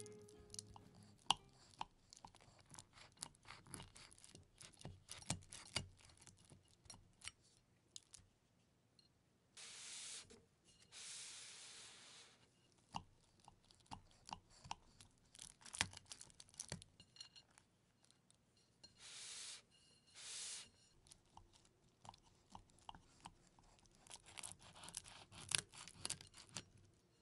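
Kitchen knife cutting through a baked pizza's crust on a plate: scattered crunching and crackling, with a few longer sawing strokes around ten and twenty seconds in.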